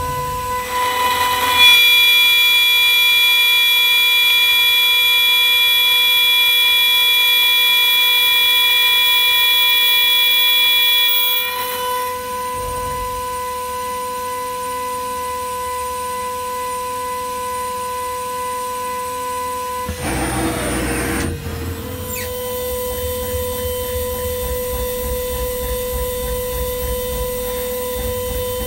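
High-speed CNC jewelry milling spindle whining steadily as a fine end mill cuts a stone channel into a ring blank. The cutting is louder and harsher for roughly the first ten seconds, then settles to a steadier, quieter whine, with a brief noisy rush about twenty seconds in.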